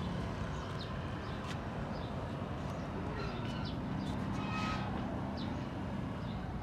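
Outdoor street ambience: a steady low traffic rumble, with scattered short high chirps of small birds.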